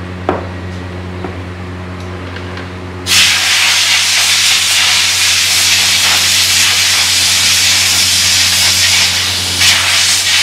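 Compressed air hissing from a blow gun as it is blown through a petrol-washed foam air filter to dry it and drive out leftover dust. The hiss starts abruptly about three seconds in, over a steady low hum.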